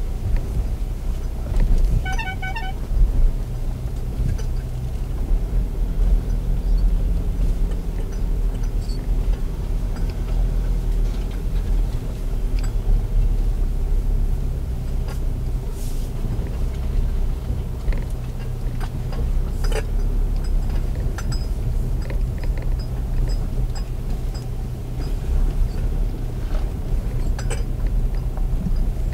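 Audi Q5 driving slowly over a rough dirt off-road track, heard from inside the cabin: a steady low engine and tyre rumble with scattered knocks and rattles as the car rides over the uneven ground. About two seconds in there is a short run of rapid beeps.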